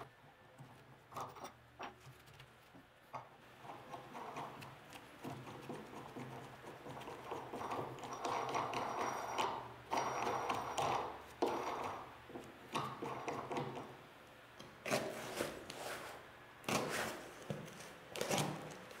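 Hand work on a steel plate: scattered metal clicks and rubbing as a hand tap is turned with a tap wrench and a knob is screwed in. Near the end, sharper knocks and rustling as parts are handled on the bench.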